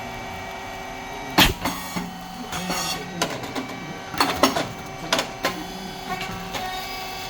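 A puffed rice cake machine running with a steady hum from its motor, hydraulic pump and fan. About a second and a half in there is one sharp bang, and later come several clusters of shorter clattering clicks as the machine cycles.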